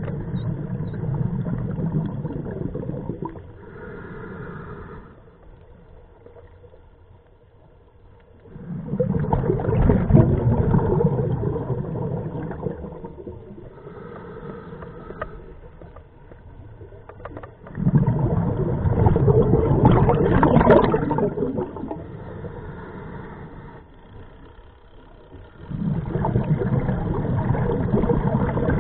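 Scuba diver breathing through a regulator underwater: four long bursts of exhaled bubbles about eight seconds apart, with a fainter hiss of the regulator on the inhale between some of them.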